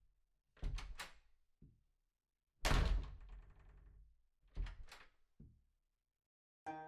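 Sound-effect knocks and thunks. About half a second in come three quick knocks and a lighter one, then a single heavy thunk with a long fading tail, then three more quick knocks and a lighter one near the end.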